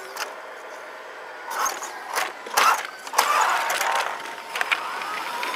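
Radio-controlled Tamiya scale model truck driving, its motor and gearing running, with several short hisses.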